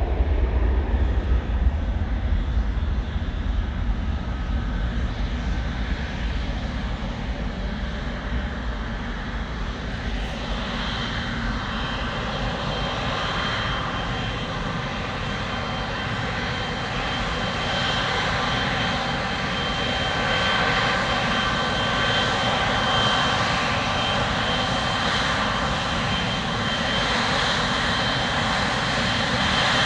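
Jet engines of a Boeing 777F freighter running steadily, with a high whine that grows stronger from about ten seconds in.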